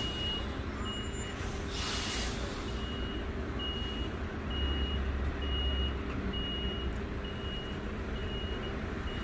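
Heavy-haul truck and multi-axle modular trailer rolling slowly past with a steady low engine rumble, while a warning beeper gives a short high beep about every three-quarters of a second. A brief burst of air hiss comes about two seconds in, and the engine rumble swells around the middle.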